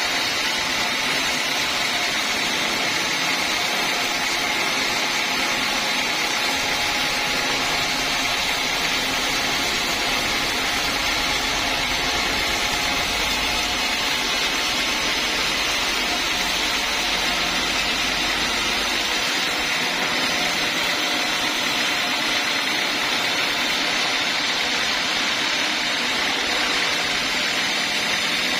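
Sawmill saw running with a steady, unchanging noise.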